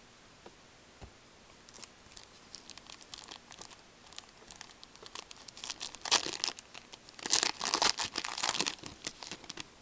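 The wrapper of a 2012-13 Rookie Anthology hockey card pack being torn open and crinkled. It starts with a few faint clicks and grows into dense crackling, loudest in the second half.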